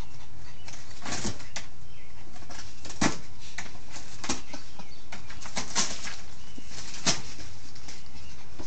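A Pomeranian's claws scratching and scraping at a cardboard box from inside it, in irregular rustling strokes.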